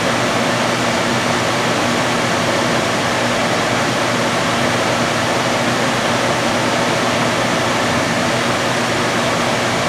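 Lampworking bench torch burning with a steady rushing hiss, a faint low hum beneath it.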